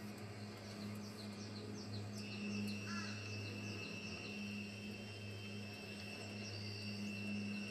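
Field ambience of insects and birds: quick falling high chirps in the first two seconds, then a steady high insect buzz that comes in about two seconds in and holds, with a short bird call about three seconds in, all over a low steady hum.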